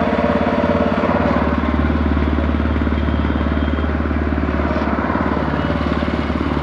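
A small motorboat's engine running steadily as the boat moves along, with a low hum and an even, fast beat.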